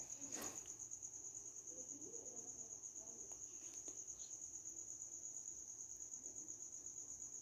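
A cricket chirping in a fast, even pulse, a thin high tone that holds steady throughout, with a soft knock just after the start.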